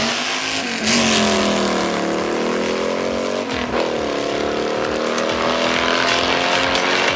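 Two drag-racing cars, a Mercedes CLS AMG and a VW Golf, accelerating hard down the strip. The engine note climbs, drops sharply about three and a half seconds in, then climbs again.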